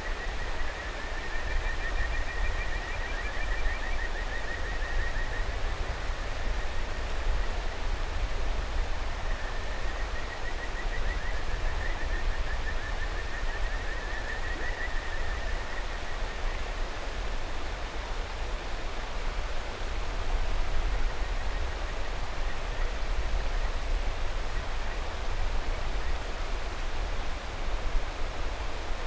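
Kajika frogs (Buergeria buergeri) calling over a steady rushing mountain river. A rapid trilled call runs from the start to about six seconds in, with a second, higher-pitched frog joining briefly. Another trilled call comes from about ten to sixteen seconds in, after which only the river is heard.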